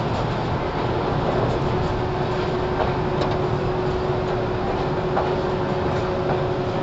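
Running sound heard inside a JR 413 series EMU motor car (KuMoHa 413) travelling at steady speed: a continuous rumble of motors and wheels on rail with a steady hum. A few sharp clicks from the track come through near the middle.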